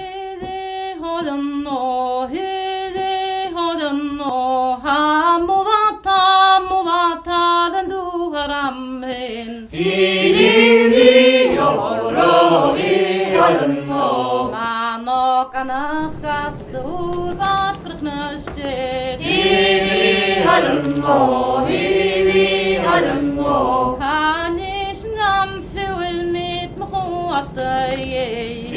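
Unaccompanied singing: one voice carries the melody, then more voices join in about ten seconds in.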